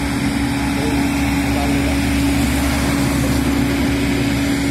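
Road milling machine running steadily: a constant loud engine drone with a steady hum over a broad rumble.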